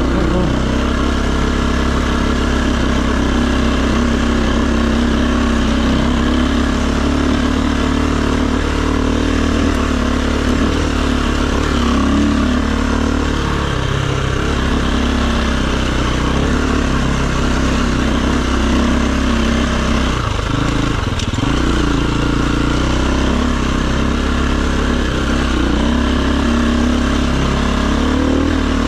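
Dirt bike engine running throughout, its revs rising and falling as the bike is ridden off-road.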